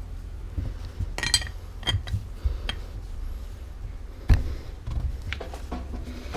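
Irregular metallic clinks and knocks of tools and the parts of an air impact wrench being handled during its repair, with the loudest knock about four seconds in.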